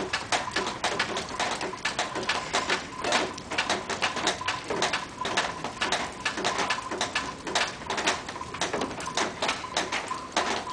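Wet snow falling and pattering on hard surfaces: a dense, irregular ticking, with a faint steady high tone underneath.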